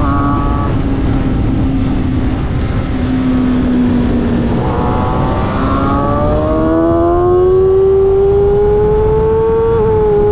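Onboard sound of a sport motorcycle engine at high revs, holding fairly steady and then rising in pitch over several seconds as it accelerates, with a brief dip near the end. Heavy wind rush on the microphone runs underneath.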